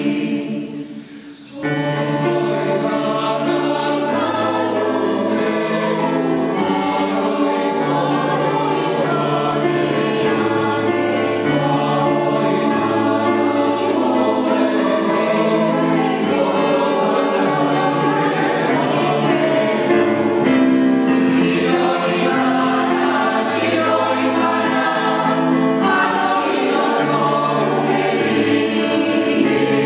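Mixed choir of women's and men's voices singing in harmony, with low notes held beneath. The singing breaks off briefly about a second in, then resumes.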